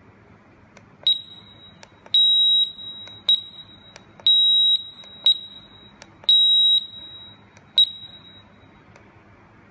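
Shot timer's built-in buzzer beeping while the unit is dripping wet: seven high-pitched beeps about a second apart, alternating short and long (four short, three half-second long), with faint clicks of its buttons being pressed.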